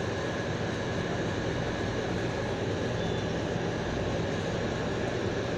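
Steady background noise: a constant even hiss with a low hum underneath, without any distinct knocks or voices.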